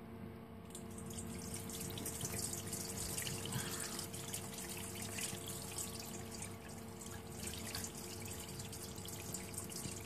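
Broth being poured through a stainless steel colander, splashing and trickling steadily through its holes; the pour starts about a second in.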